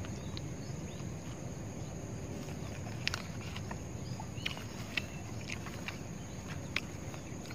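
Someone eating from a food wrap: a few soft, sharp clicks and rustles of a spoon and the wrapping, over a steady low outdoor rumble.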